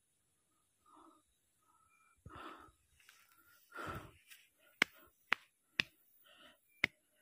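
A hiker panting heavily on a steep climb, a few long labored breaths, followed by four sharp clicks or taps about half a second apart, the loudest sounds.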